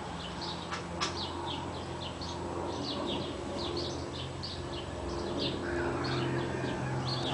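Small birds chirping in quick, short notes, several a second, with two sharp clicks about a second in and a low steady hum underneath.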